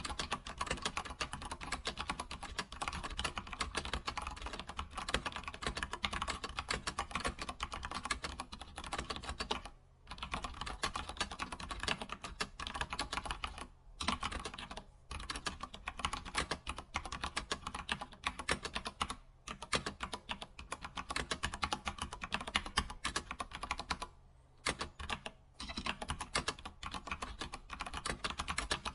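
Typing on a computer keyboard: a fast, continuous run of keystrokes, broken by brief pauses a few times.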